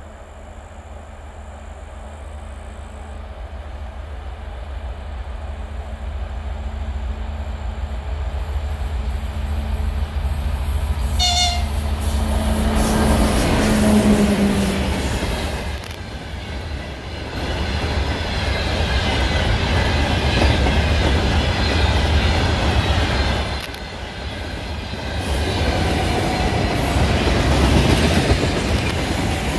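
Freight train hauled by a twin-section diesel locomotive approaching and passing: the engine's low drone grows steadily louder, a brief horn toot sounds about eleven seconds in, and the engine note drops in pitch as the locomotive goes by. The wagons then roll past with a loud rushing clatter of wheels on rail.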